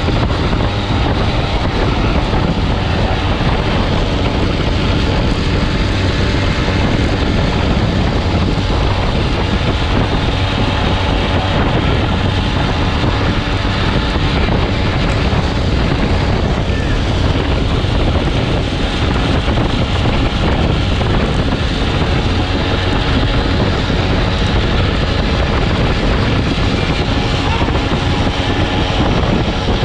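Derny pacing motorbike's small engine running steadily just ahead, mixed with heavy wind noise on the microphone at racing speed.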